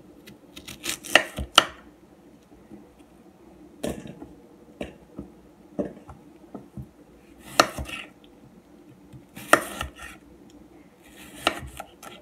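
Kitchen knife cutting raw potatoes into wedges: irregular sharp chopping knocks, single or in quick pairs, every second or two. The loudest come about a second in and again near the middle and toward the end.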